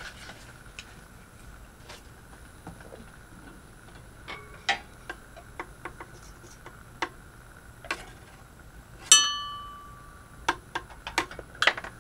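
Scattered small clicks and ticks over a faint steady high hum. About nine seconds in comes one bright metallic ding that rings out for about a second, then a quick run of clicks near the end.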